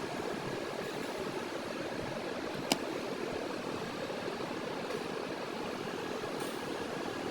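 Steady mechanical background hum, like a fan or distant traffic, with one sharp click or tap about two and a half seconds in.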